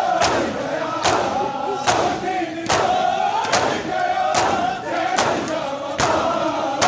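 A crowd of Shia mourners doing matam: many hands striking chests in unison, one sharp collective slap a little more than once a second. Massed voices chant between the strikes.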